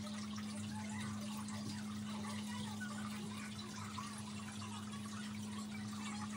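A steady low hum, with a faint trickling, water-like background noise flickering over it.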